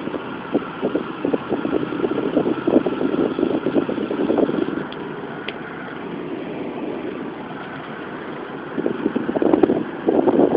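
Car driving, heard from inside the cabin: road and engine noise with an uneven, fluttering rush. It eases off in the middle and swells again near the end.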